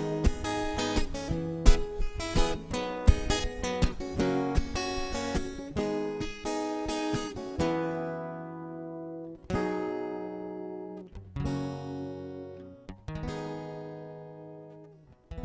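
Acoustic guitar strummed in a quick rhythm, then slowing to three single chords a couple of seconds apart, each left to ring and fade away: the closing chords of a song.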